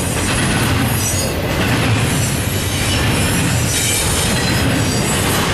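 Double-stack intermodal freight train rolling past: a steady rumble of steel wheels on the rails, with a faint high-pitched wheel squeal above it.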